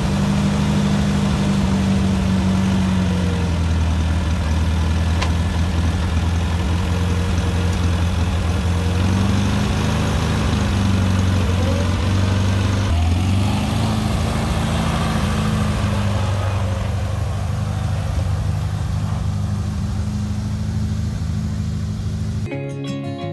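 1950 Farmall Cub's four-cylinder flathead gasoline engine running steadily just after starting, its note shifting up and down a few times partway through as the tractor pulls away, then fading as it drives off. Acoustic guitar music cuts in at the very end.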